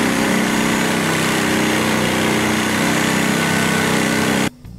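Reciprocating saw (Sawzall) running steadily as its blade cuts through a rusted leaf-spring shackle bolt; it cuts off abruptly near the end.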